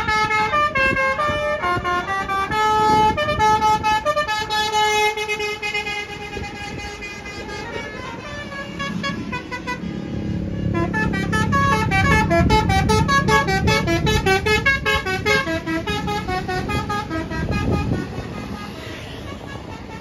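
Bus telolet horns, sets of electric-valve air trumpets, playing a quick tune of stepped notes. About halfway through, a bus's engine rumble swells under the tune as it draws near, and the notes come faster.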